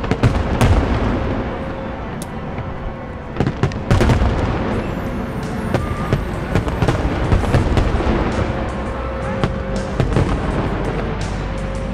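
Aerial fireworks display: shells bursting in a dense run of sharp bangs over a continuous low rumble, with music playing.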